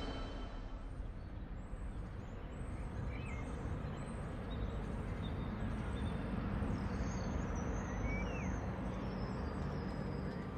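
Outdoor ambience: many small birds chirping and calling over a steady low background rumble.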